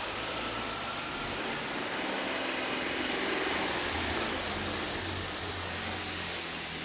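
Electric train running: a steady rushing noise with a low hum underneath.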